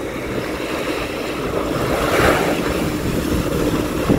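Speedboat engine running as it comes in toward the shore, mixed with wind on the microphone, with a rushing swell about two seconds in.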